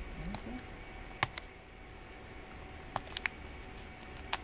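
A few small, sharp plastic clicks: one about a second in, two close together around three seconds in, and one near the end. These are fingers working a laptop battery cable connector on the motherboard to unplug it.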